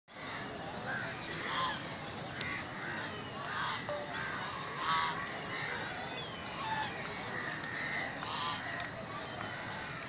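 Geese honking, many short calls one after another at irregular spacing, over a steady background hiss.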